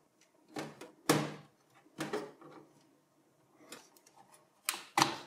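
ATX and P4 power-supply connectors being unlatched and pulled off a PC motherboard: a handful of short plastic clicks and knocks, the loudest about a second in and just before the end.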